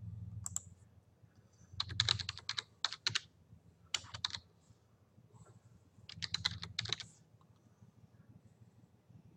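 Computer keyboard typing in several short bursts of quick keystrokes, with pauses between them.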